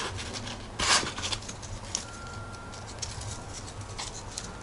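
Small action-figure accessories, plastic and metal weapons and gear, being handled and set down by hand. There is a brief rustling scrape about a second in, then scattered light clicks and taps.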